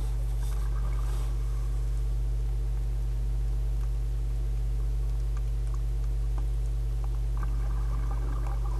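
Underwater recording through a diving camera's housing: a steady low drone with several steady hum tones over it, and two brief faint rushing sounds, about half a second in and again near the end.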